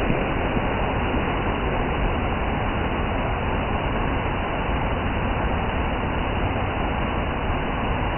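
Rain falling steadily, an even hiss with no breaks or changes.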